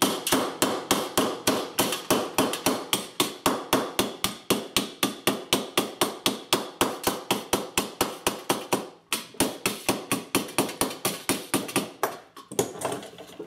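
Rapid, steady metal-on-metal tapping: the back of a steel adjustable wrench striking the inside of a pressed-tin toy car body to beat out a dent, about four or five taps a second, with a short break about nine seconds in.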